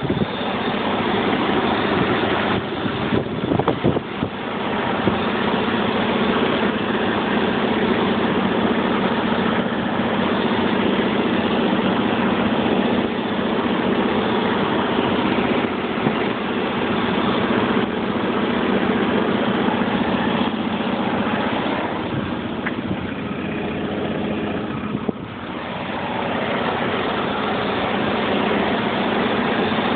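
BMW M73 V12 engine idling steadily on a cold start. The owner describes this idle as rough, and notes a metallic tapping from the lower passenger side of the engine bay that the seller put down to a possible hole in the exhaust manifold.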